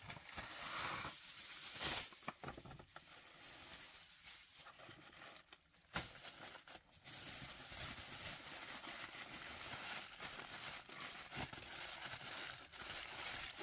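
Aluminium foil crinkling and rustling as it is folded and crimped around food into a packet, with a single sharp tap about six seconds in.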